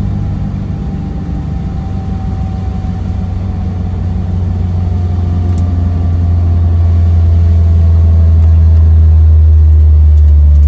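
Honda S2000's four-cylinder engine and drivetrain heard from inside the cabin while cruising at low speed: a low, steady drone that grows louder over the clip, its pitch easing slightly downward.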